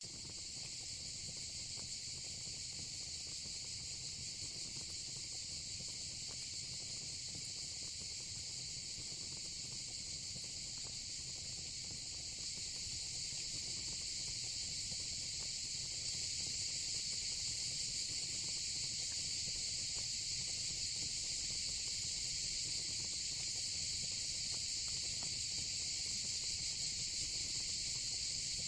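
A steady, high-pitched insect chorus shrills without pause over faint scattered crackles and a low rumble from a fire pit. The chorus grows a little louder partway through.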